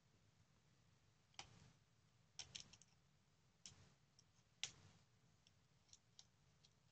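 Faint, scattered clicks and light taps of a circuit board and small metal standoffs being handled and pressed together by hand, some clicks coming in quick little clusters.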